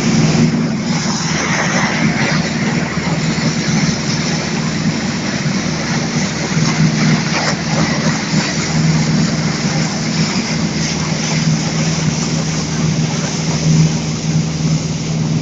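Speedboat engine running steadily under way, a constant low drone with a rushing hiss over it.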